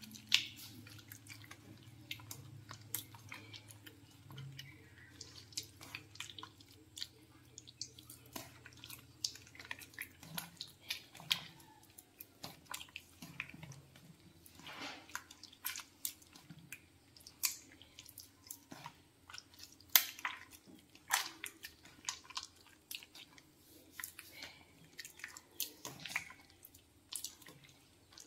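Soft, irregular wet squelching and small splats as a bare hand squeezes and crumbles clotted goat's blood in an aluminium bowl.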